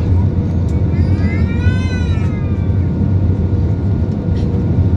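Steady low rumble of a jet airliner heard from inside the cabin. About a second in, a short voice rises and falls in pitch over the noise.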